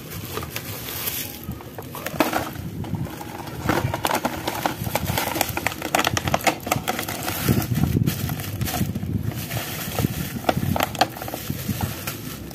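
Parcel packaging being torn open by hand: plastic wrap and a cardboard box crinkling, rustling and tearing in an irregular run of crackles.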